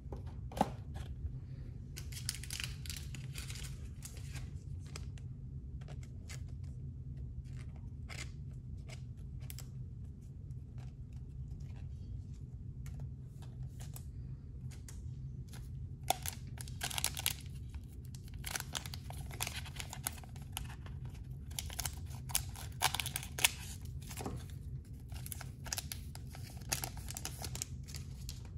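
A foil trading-card pack wrapper being torn open and crinkled, in bursts of crackling, with the cards handled. It runs over a low steady hum.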